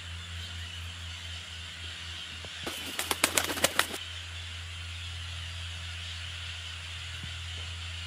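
A quick run of sharp wingbeats lasting about a second, a few seconds in: a toucan flapping as it flies between perches. It sits over a steady low hum and hiss.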